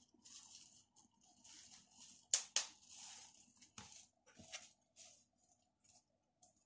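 Faint handling noise: soft rustling with a few short clicks and taps from hands holding and moving a smartphone, the sharpest pair of clicks about two and a half seconds in.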